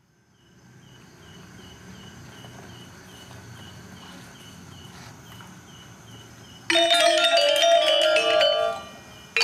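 Balinese gamelan ensemble of bronze metallophones bursting in suddenly and loudly about two-thirds of the way in with a fast, bright, shimmering passage, breaking off briefly just before the end and striking in again. Before the entry there is only faint background with an evenly repeated high chirp about two times a second.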